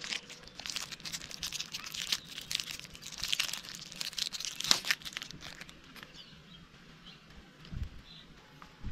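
A soap bar's wrapper being crinkled and torn open by hand, the crackling busiest in the first five seconds and quieter after.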